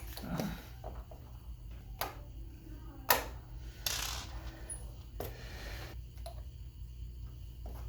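A few scattered sharp metallic clicks and taps from handling a door hinge and its screws, the loudest about three seconds in, with a short scrape about a second later.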